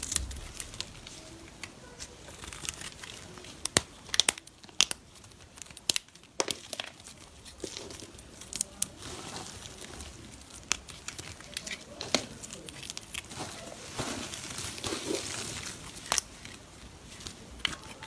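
Dry soap being cut and crumbled with a blade: a crisp crinkling crackle with many sharp little clicks and snaps, thicker in two stretches about four and fourteen seconds in.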